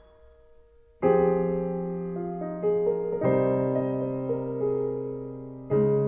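Background piano music. The first second is nearly quiet. A loud chord comes in about a second in, and new chords follow about three seconds in and near the end, each ringing and slowly fading.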